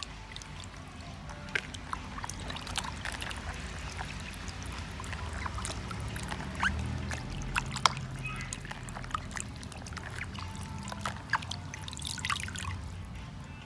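Water splashing and sloshing in a plastic basin as hands scrub raw chicken feet, with many small sharp splashes and drips.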